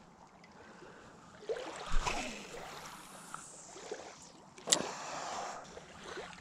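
Spinning rod and reel being handled at the water's edge, with a knock about two seconds in and a sharp click near five seconds, over soft lapping water and wind.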